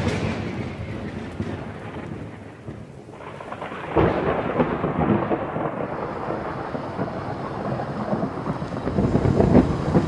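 Thunder sound effect: starts loud and fades into a long rumble, then swells again about four seconds in.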